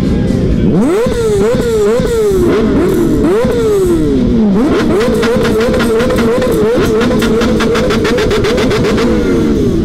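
Kawasaki Z H2's supercharged inline-four with an aftermarket SC-Project exhaust, stationary and revved hard in quick blips, then held high against the launch-control rev limit with a rapid stutter. The revs drop near the end.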